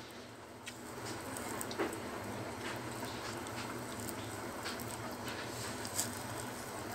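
Faint sounds of eating rice by hand from a metal plate: soft, scattered clicks and smacks over a steady low hum.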